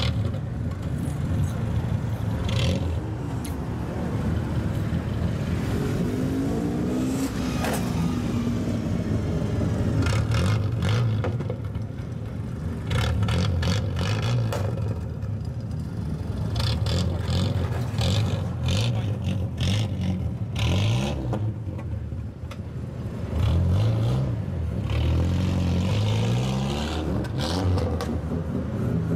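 Engine of a lowered old Japanese sedan running through an open, straight-piped exhaust and blipped repeatedly. The pitch rises and falls several times, with a cluster of revs in the last few seconds.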